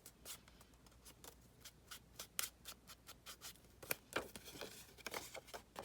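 Faint dabbing and rubbing of a walnut-stain ink pad along the edges and folds of a paper envelope: a string of soft, irregular ticks and scrapes.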